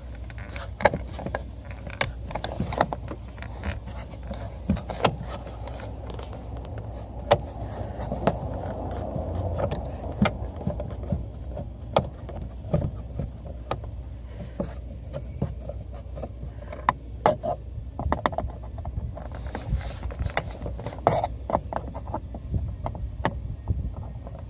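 Phillips screwdriver working screws out of a car's rear door trim: scattered clicks and light scraping, with a longer stretch of scraping partway through, over a low steady rumble.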